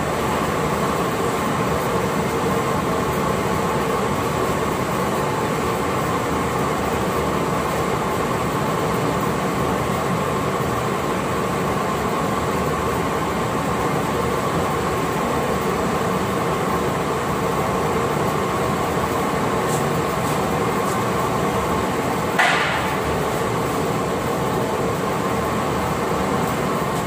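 Glass-workshop machinery running with a steady mechanical hum that holds several steady tones. A single sharp knock with a short ring comes about 22 seconds in.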